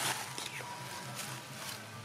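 Dry leaf litter rustling and crackling under a baby long-tailed macaque scrambling through it, loudest at the start and then a few lighter crackles.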